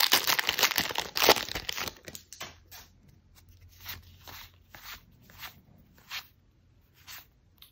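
The foil wrapper of a Pokémon booster pack crinkling and tearing as it is opened. After about two seconds come a series of short swishes, trading cards slid one at a time off the stack.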